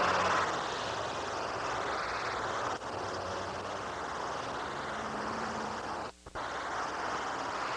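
Steady engine-like drone, with a click about three seconds in and a brief dropout a little after six seconds.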